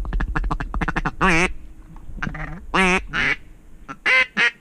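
Mallard duck call blown by a hunter to call passing ducks back: a fast feed chatter for about the first second, then a string of about six loud quacks, each dropping in pitch at its end.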